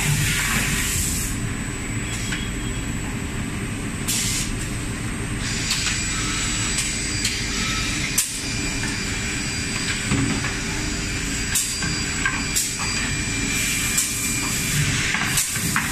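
CNC six-sided panel drilling machine (Leabon SG 612J) running, with a steady hum, several short hisses of air and a few sharp clicks.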